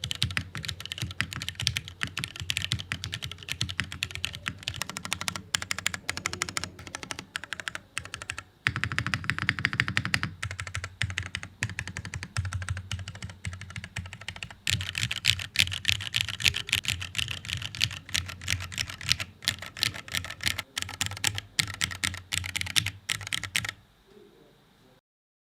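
Fast, continuous typing on a TOFU TKL custom mechanical keyboard with Cherry MX Black linear switches on 45g springs and PBT keycaps. The key clacks come in dense runs, dip briefly twice, and stop a second or so before the end.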